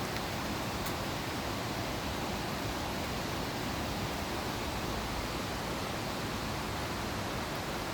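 Mountain valley stream rushing, quite loud: a steady, even wash of flowing water with no breaks.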